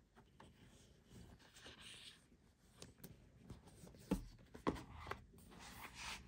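Faint rustling and sliding of paperback books packed upright in a cardboard box as fingers riffle along their edges, with a couple of soft knocks a little after four seconds in as one book is drawn out.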